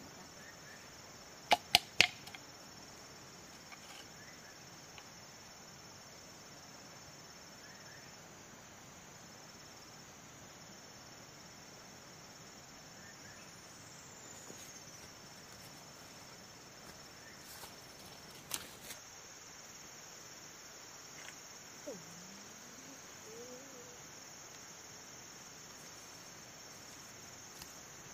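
Steady high-pitched insect chorus, with a quick run of three sharp knocks about a second and a half in and a few fainter clicks later on.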